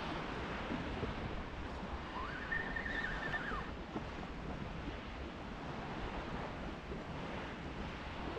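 Steady wash of a calm sea with wind on the microphone. About two seconds in, a faint whine rises, holds for about a second, then drops away.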